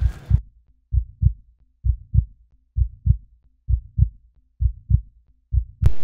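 Heartbeat sound effect: slow, steady pairs of low thumps (lub-dub), a little more than one beat a second. A background hiss cuts off about half a second in.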